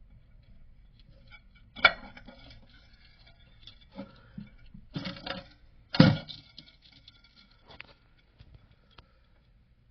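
A few sharp clinks and knocks of hard parts being handled in a toilet tank, each leaving a brief ringing tone; the loudest come about two seconds in and about six seconds in.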